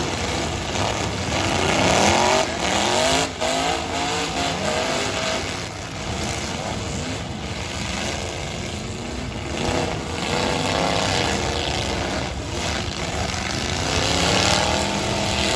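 Several demolition derby trucks' engines revving hard at once, their pitches rising and falling as they spin their tyres, with a few sharp bangs of trucks colliding.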